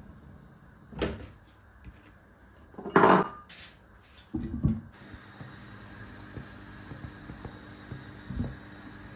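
A wooden spatula knocks against the pan, then a glass pot lid with a silicone rim is set on with a few clunks, the loudest about three seconds in. From about halfway a steady hiss follows as the curry simmers under the lid.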